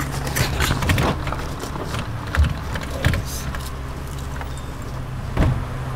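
Steady low hum of a running vehicle engine, with a few scattered knocks and clicks.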